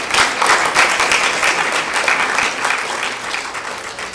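An audience applauding, many people clapping at once, fading out near the end.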